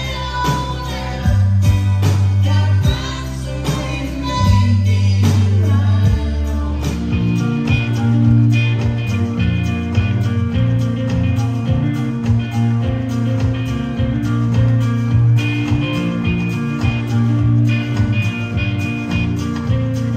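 Live band playing on a concert sound system: guitar, drums and singing. The music changes to a different song about seven seconds in.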